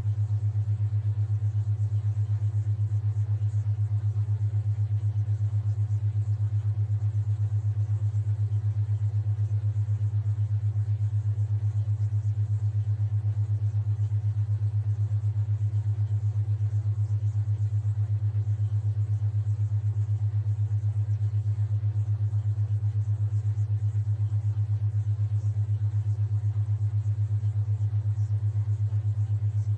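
Theta-wave tone: a steady low hum that pulses evenly several times a second, with a faint hiss above it.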